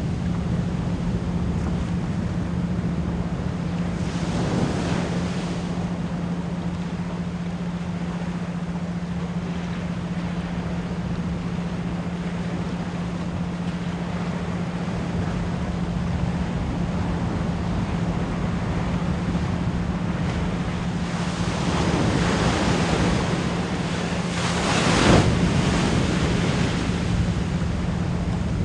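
Ocean waves washing in over a steady 174 Hz pure tone. One wave swells about four seconds in, and a larger one builds a little past the middle and breaks loudest near the end.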